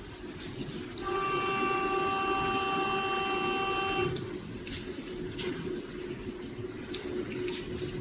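A steady pitched tone sounds for about three seconds starting about a second in, the loudest thing here, over a steady low hum. After it come a few sharp light clicks from a hand buffer strip tool stripping the buffer coating off optical fibers.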